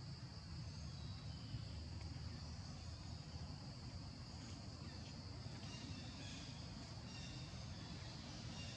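Faint forest ambience: a steady high-pitched insect drone over a low rumble, with a few faint short chirps in the second half.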